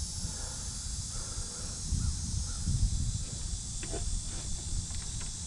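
A few crows cawing in the background over a steady high hiss and a low rumble. About four seconds in come a couple of light knocks as the plastic back of a flat-screen TV is handled.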